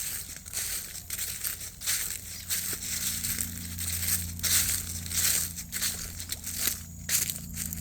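Dry brush and leaf litter crunching and crackling in irregular strokes, as something pushes through the thicket. A steady low hum comes in about a third of the way through.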